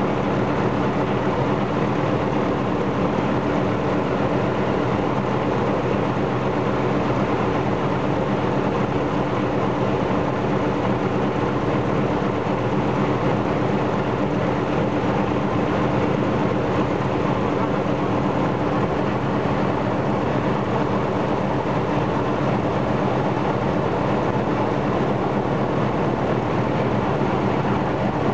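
Ilyushin Il-14's Shvetsov ASh-82T fourteen-cylinder radial piston engine running steadily on a ground run with its cowlings removed, together with its propeller.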